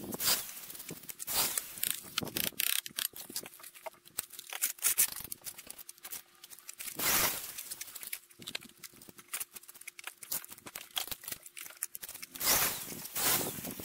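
Gritty scraping and brushing with many small clicks and taps: hands working rough material at the top of a stone veneer wall. Louder scrapes come about halfway through and again near the end, over a faint steady hum.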